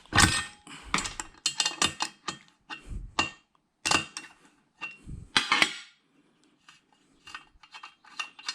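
Small metal parts being knocked and clinked while connectors are taken apart by hand: irregular sharp taps and clinks in quick clusters, fainter near the end.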